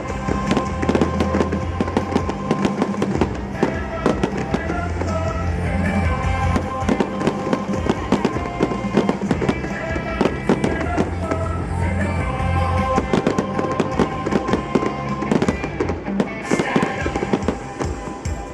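Fireworks going off in quick, irregular succession, many bangs and crackles overlapping, with a medley of Singapore National Day songs playing underneath.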